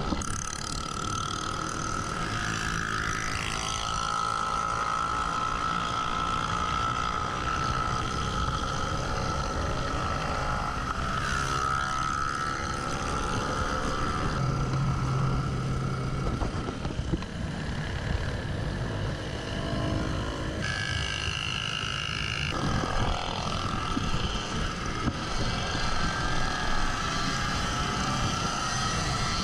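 Small motorcycle engines running at riding speed, the pitch rising and falling in places.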